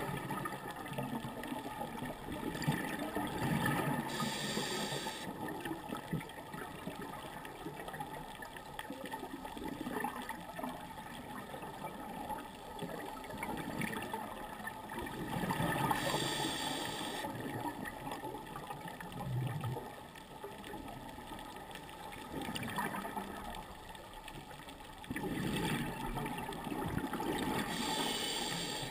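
Scuba diver breathing through a regulator, heard underwater: a hiss high in pitch three times, about twelve seconds apart, over a constant muffled bubbling of exhaled air.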